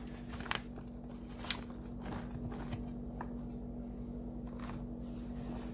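A steady low hum with a few soft, short clicks and taps spread across the first half.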